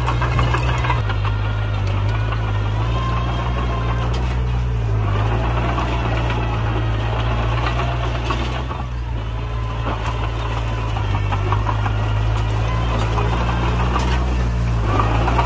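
Komatsu crawler dozer's diesel engine running steadily as the machine pushes a pile of stone and dirt, with a light clatter of the steel tracks; the engine note eases briefly about eight seconds in, then picks up again.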